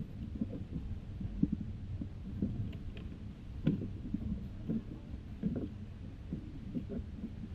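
Low rumbling hall noise with scattered soft, irregular thuds.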